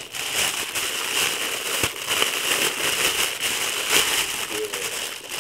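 Thin clear plastic bakery bag crinkling and rustling as hands open it around a croquette, with sharper crackles about two seconds in and again at four.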